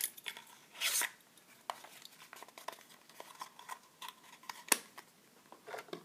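Handling sounds as a small brass padlock is taken out of its cardboard box: a short rustle of card about a second in, light clicks and taps of the metal lock, and one sharper click later on.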